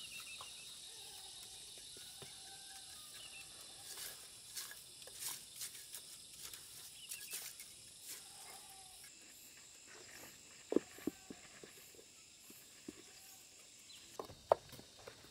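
Steady high-pitched insect drone, with scattered light clicks and a few sharp knocks near the end.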